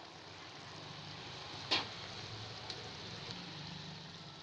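Chicken in chili sauce sizzling and simmering in a wok: a steady hiss over a low hum, with one sharp clack a little under two seconds in and two faint ticks after it.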